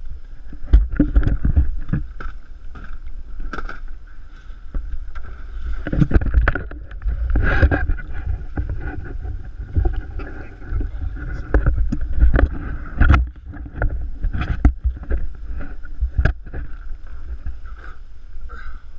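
Water slapping and sloshing against the side of a small fishing boat, with irregular knocks and splashes as a pike is held in a landing net against the hull, over a steady rumble of wind on the microphone.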